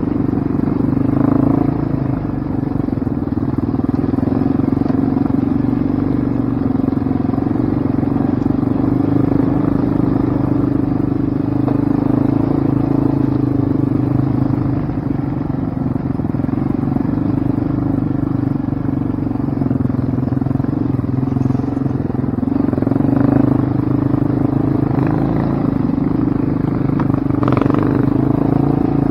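ATV (quad) engine running at steady revs while riding a rough trail, with a couple of brief knocks about a second in and near the end.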